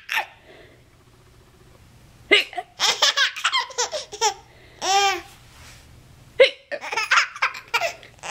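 Baby laughing at hiccups in two bouts of rapid high-pitched giggles, about two seconds in and again near the end. Each bout opens with a sharp hiccup, and there is a single squeal between them.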